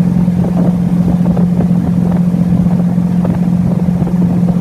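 Motorboat engine running at a steady speed, a loud, even drone.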